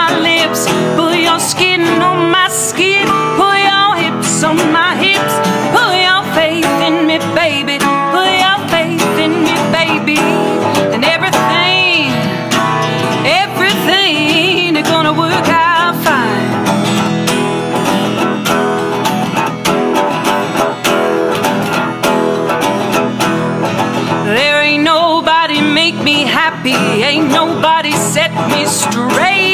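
Acoustic guitars playing an instrumental passage of a live folk song, with a lead line that bends in pitch over the accompaniment.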